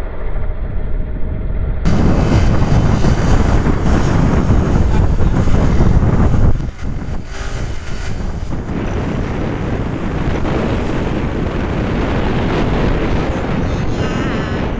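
Wind rushing over the microphone of a moving Bajaj Pulsar NS200 motorcycle, with engine and road noise underneath. It follows a short muffled stretch at the start, and eases slightly about six seconds in before holding steady.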